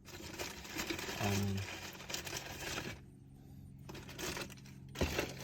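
Light clicks and rustling of hands handling a wiring cable and plastic connectors inside a steering wheel, with a short hum from the worker about a second in and a sharper click near the end.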